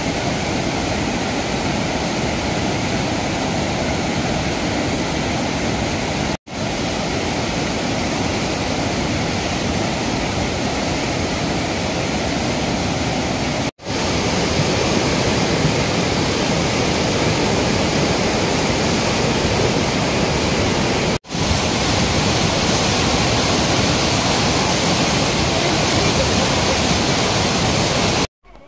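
Floodwater of a mountain river in flash flood after a cloudburst: a loud, steady rushing of churning, silt-laden water. It drops out to silence briefly three times, at cuts between clips.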